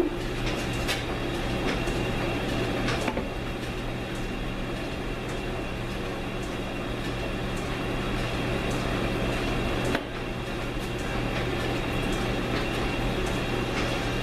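1942 South Bend lathe running steadily with a low hum during a threading pass on an AR15 barrel, with a few light clicks; the pass cuts no metal.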